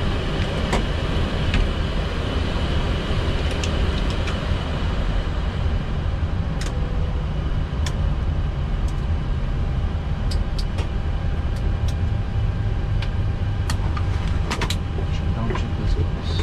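Steady low rumble of a Boeing 737 MAX taxiing after landing, heard in the cockpit, with scattered sharp clicks and ticks.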